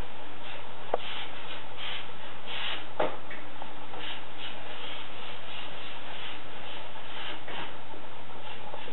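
A miniature schnauzer sniffing rapidly with its nose to a wooden parquet floor, in quick repeated puffs, with a couple of sharp knocks about a second and three seconds in.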